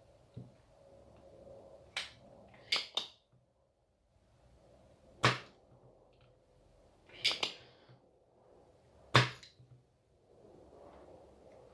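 A handful of sharp clicks and knocks at irregular spacing, a second or two apart, from tools and the board being handled during bench work on a washing machine's control panel.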